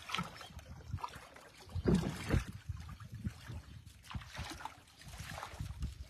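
Shallow muddy water splashing and sloshing as a fishing net is hauled and shaken through it by hand, in irregular splashes, loudest about two seconds in.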